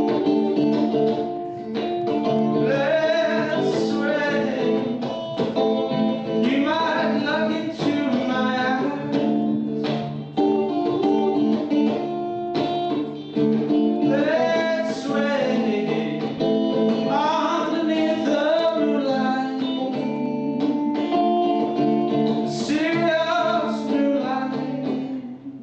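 Live acoustic guitar playing, with a voice singing melodic phrases over it.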